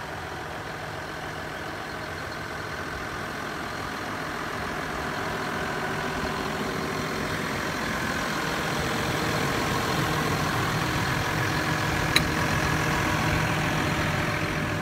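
John Deere 6155R tractor's 6.8-litre six-cylinder diesel idling steadily, growing gradually louder. A single sharp click about twelve seconds in.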